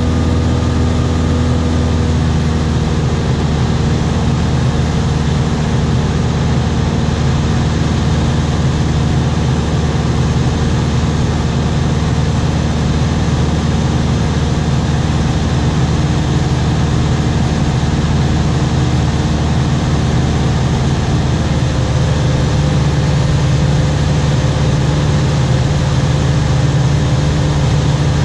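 Aircraft engine droning steadily in flight. Its tone shifts slightly about two seconds in and again about twenty-one seconds in.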